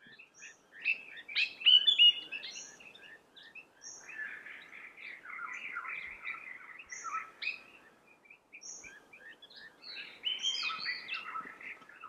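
Red-billed blue magpie juveniles calling while being fed, a busy run of short chirps and squeaks, loudest about two seconds in. A thin high note comes back about once a second throughout.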